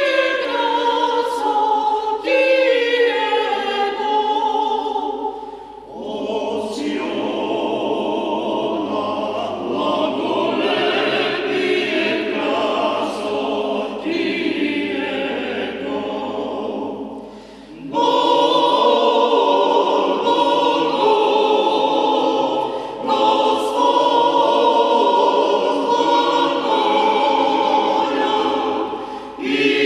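Small mixed choir of men's and women's voices singing an Orthodox church hymn unaccompanied. The phrases break for short breaths about six seconds in, again near eighteen seconds and near the end.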